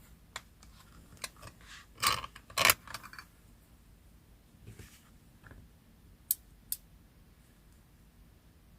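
Paper and small craft tools being handled for a collage: scattered taps and short paper rustles, loudest in a cluster about two to three seconds in, with two sharp clicks later on.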